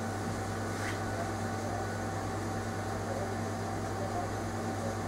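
Steady low electrical hum with an even fan-like hiss, unchanging throughout.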